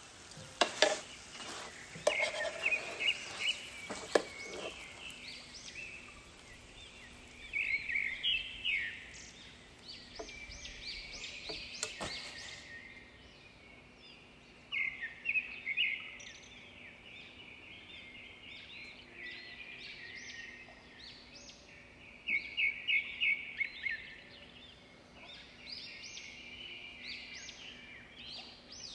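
Birds chirping and singing in short, repeated phrases, with a few sharp clicks in the first few seconds.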